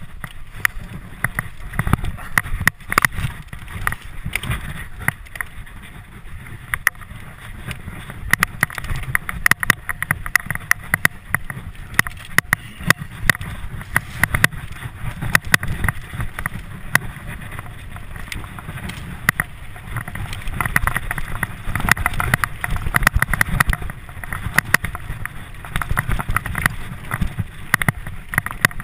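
Mountain bike ridden fast down a rough dirt singletrack: a constant stream of rattling and knocking as the bike and rider bounce over the trail, over a low wind rumble on the microphone.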